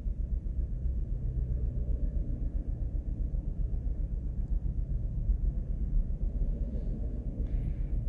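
2018 Chevrolet Cruze's 1.4-litre turbocharged four-cylinder idling with a low, uneven rumble, heard from inside the cabin. The engine is misfiring, with a cylinder 1 injector control circuit fault logged.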